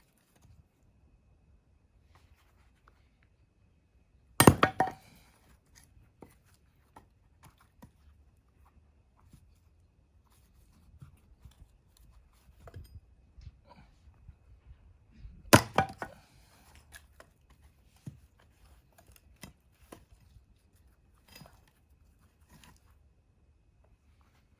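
Axe striking firewood twice, the hits about eleven seconds apart, each a sharp crack followed by a short crackle as the wood splits. Light knocks and clicks come in between.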